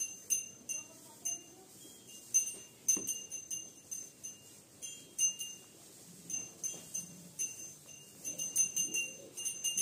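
Small cattle bells on feeding calves tinkling in short, irregular jingles as they move their heads.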